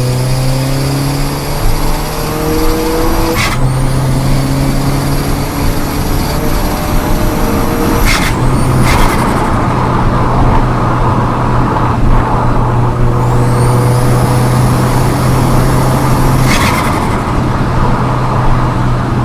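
Volkswagen Golf GTI Mk4's 1.8 20-valve turbo four-cylinder pulling hard through the gears, its pitch climbing in each gear as the turbo spools with a rising whistle. At each gear change, four times, there is a short sharp burst as the throttle lifts: the turbo flutter of the built-up boost.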